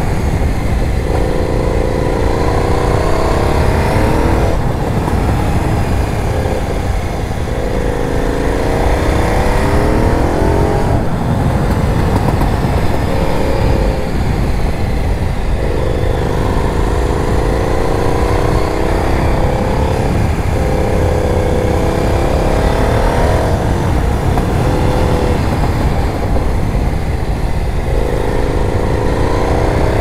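KTM 990 Super Duke's V-twin engine, heard from the rider's seat, rising in pitch as it accelerates and dropping back, about six times over the stretch, under a heavy low rumble of wind on the microphone.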